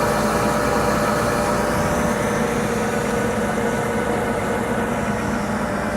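Metal lathe running steadily at 450 RPM, a constant machine hum with a few steady whining tones from its motor and gearing, while a very light turning cut is taken.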